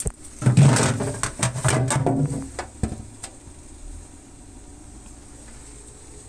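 Parts of a small refrigerator being handled, knocking and rattling for about three seconds, with a sharp knock at the start and another near the end of the clatter.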